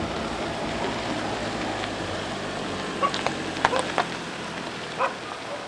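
Cars rolling slowly along a dirt track, tyres crunching on the loose surface with a low engine hum that fades about three seconds in. Several short sharp sounds follow near the end.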